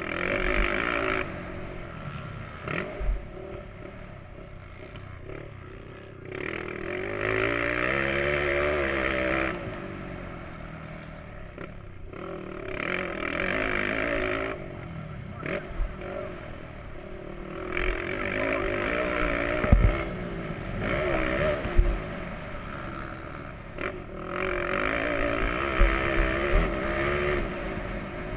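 Motocross bike engine on board, revving hard and backing off in about five surges of a few seconds each, its pitch falling as the throttle closes. A couple of sharp thumps come about two-thirds of the way through.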